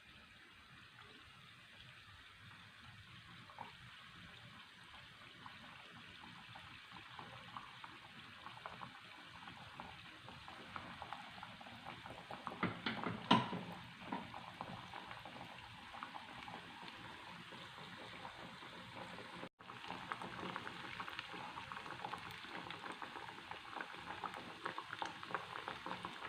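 Battered banana slices frying in hot coconut oil: a faint, crackling sizzle that slowly grows, with a louder burst of sizzling about halfway through.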